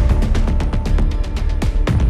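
Background music with rapid, evenly spaced drum hits over a deep bass rumble.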